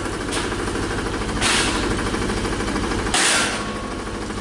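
A small engine running steadily with a fast, even chugging beat. Two short hissing bursts break over it, about a second and a half in and again near the end.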